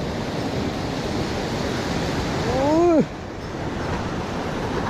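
Surf breaking and washing over breakwater rocks, a steady rush that swells louder until about three seconds in and then cuts off suddenly. Just before the drop comes a short exclamation from a person, rising and then falling in pitch.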